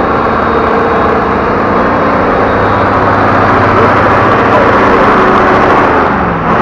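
A large engine running close by, loud and steady.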